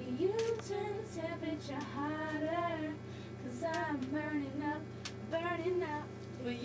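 Girls singing a tune, the notes held and sliding in pitch, with a few sharp slaps of hands meeting.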